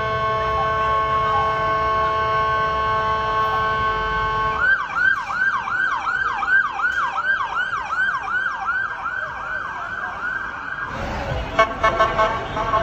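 Police car siren: a steady, blaring multi-note tone, then from about five seconds in a fast yelp of quick falling sweeps, about three a second. Near the end it breaks into a choppier mix of tones with a few sharp clicks.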